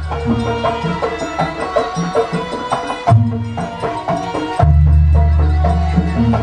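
Live Javanese jaranan music: drums and percussion beating a busy rhythm under a melody line, with deep sustained bass notes for the first half-second and again from about two-thirds of the way in.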